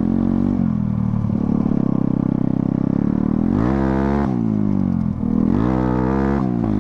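Modified TVS Apache RTR 160 dirt bike's single-cylinder four-stroke engine being ridden on the throttle, steady at first, then revving up sharply twice, about three and a half and five and a half seconds in, each time dropping back.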